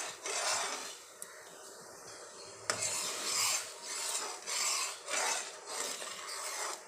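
A metal spoon stirring syrup in an aluminium pan, scraping round the pan's bottom in repeated strokes. There is a sharp clink of spoon on pan about two and a half seconds in, followed by about six even scrapes.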